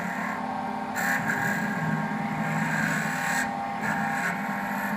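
Automatic wood bead-making lathe running: a steady motor hum with a higher cutting whine as the bead cutter bites into the spinning wooden dowel. The cutting noise comes and goes in several short spells, about a second in, again from about two to three and a half seconds, and near four seconds.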